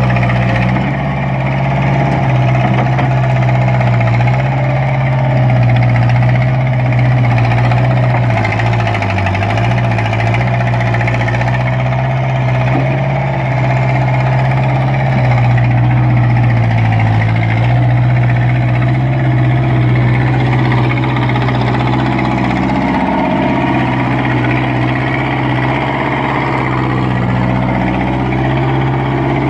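Thomas T133 skid steer's engine running steadily with a constant low hum, dipping briefly in pitch twice, about a third and a half of the way through.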